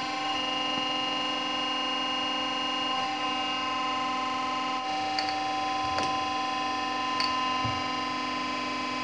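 Electric oil pump running with a steady hum of several tones, pushing clean engine oil through a metered hand nozzle to fill a new oil filter before it is fitted. A few light clicks and taps sound over the hum.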